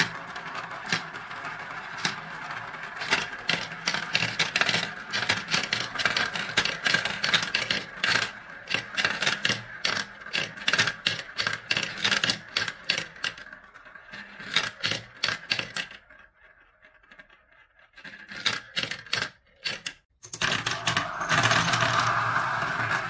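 Marbles rolling and clacking through a clear plastic marble run: a steady rolling hiss from the funnels with a rapid, uneven patter of sharp clicks as marbles drop through tubes and hit the ramps. The sound dies away briefly about two-thirds through, then near the end a handful of marbles is poured from a small glass into a funnel and a denser, steady rolling sound starts.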